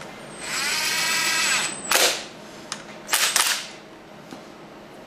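Electric driver running an ARP connecting-rod cap bolt down for about a second and a half, its motor pitch dropping as the bolt snugs up and seats the rod cap. This is followed by a sharp burst about two seconds in and two more short sharp bursts a second later.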